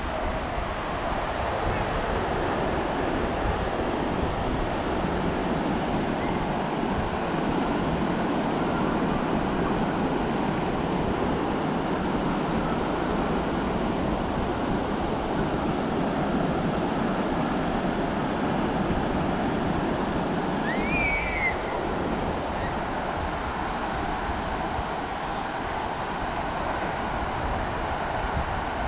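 Ocean surf washing steadily onto a sandy beach, with wind rumbling on the microphone. A brief high cry sounds about three-quarters of the way through.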